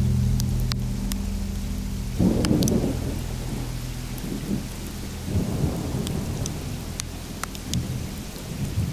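Thunder rumbling twice, starting about two and five seconds in, over a steady hiss of rain, with scattered sharp crackles.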